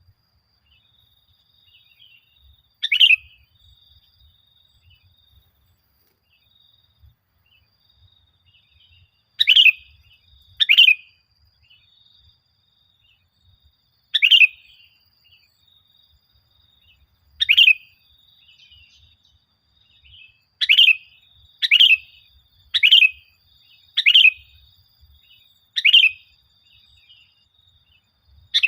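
Sooty-headed bulbul (kutilang) giving short, loud, chirping calls, a few seconds apart at first and coming in quicker succession near the end. A faint steady high tone runs behind the calls.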